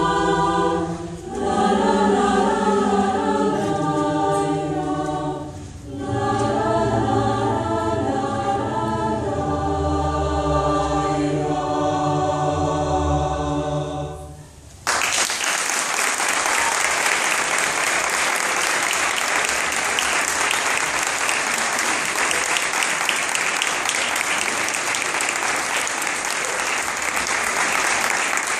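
Mixed choir of young and adult voices singing the closing phrases of a choral arrangement in sustained chords, with two brief breaths between phrases and a final chord that fades out about halfway through. The audience then breaks into steady applause that lasts to the end.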